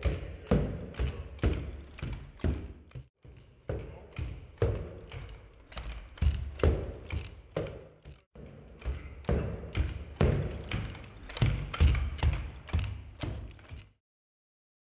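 Cassie bipedal robot's feet striking a concrete floor as it walks, about two thuds a second, played back slowed down. The steps break off briefly twice and stop about a second before the end.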